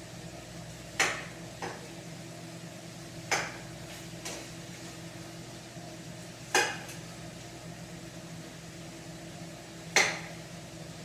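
Kitchenware clinking and clanking, about six sharp knocks spread irregularly, each ringing briefly, over a steady low hum.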